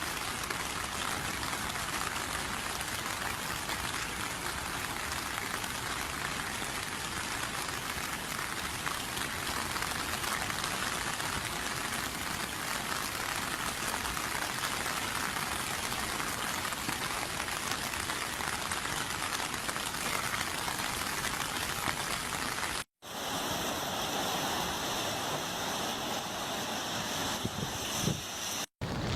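Steady hiss of heavy typhoon rain, with no distinct events; it cuts off abruptly twice and resumes as a similar rushing noise.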